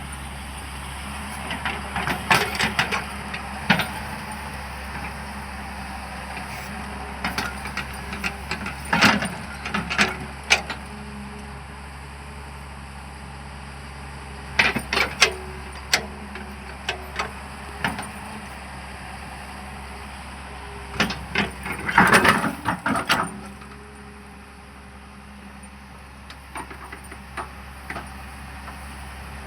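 Hyundai excavator's diesel engine running steadily, with several short bursts of clanking and rattling from the working machine; the loudest burst comes a little past two-thirds of the way through.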